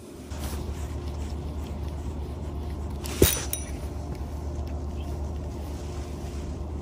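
A steady low rumble, with one sharp knock about three seconds in.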